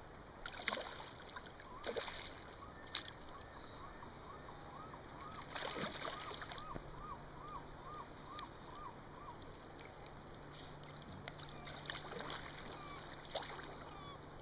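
Water lapping with a handful of short splashes as a hooked chum salmon thrashes at the surface. Through the middle, a repeated short chirp sounds about once or twice a second.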